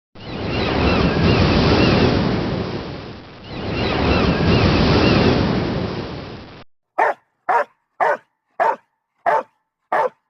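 Ocean surf swelling and washing back twice, then a dog barking six times in quick, even succession.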